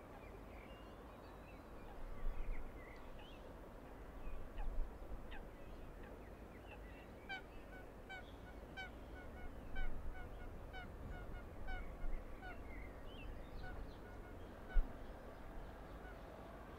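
Geese honking in a steady series, two to three calls a second, from about seven seconds in, with small birds chirping and a low rumble of wind and distant city underneath. A single low thump near the end.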